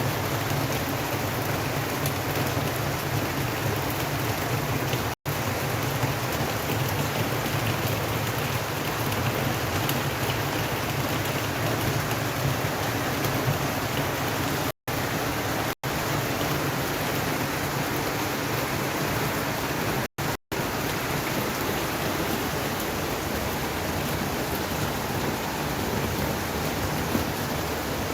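Steady rain falling, an even hiss with no let-up. The sound cuts out to silence for a split second about five times, around 5, 15, 16 and twice near 20 seconds in.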